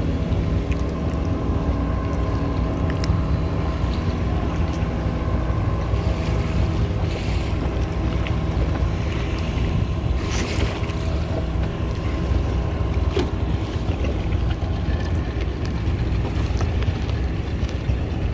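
Fishing boat's engine running steadily under way, with water rushing past and wind on the microphone.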